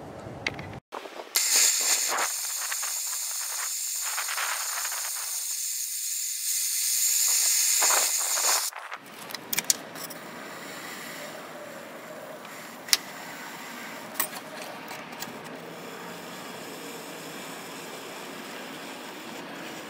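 Handheld gas torch burning with a steady hiss for about seven seconds while it heats a steel putty knife, louder in its later part. It cuts off suddenly, leaving a quieter stretch with a few faint clicks as the hot knife is worked against the plastic battery box.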